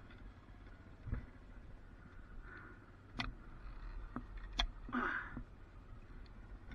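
A few scattered sharp clicks and knocks of hand cutters and cable hardware being handled on a utility pole while the lashing wire on coaxial trunk cable is worked, the loudest about four and a half seconds in, followed by a short rustle. A steady low rumble lies underneath.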